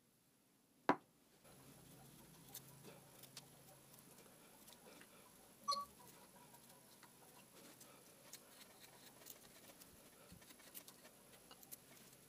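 Hand carving cutter shaving wood: faint, irregular small scrapes and ticks, with one sharp click about a second in.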